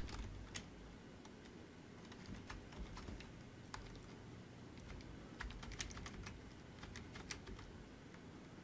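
Computer keyboard typing: faint, irregular keystrokes, with a few quick runs of keys.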